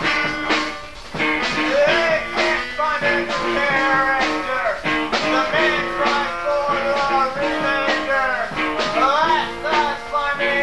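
A live rock band playing, with guitar and a voice singing over a steady beat.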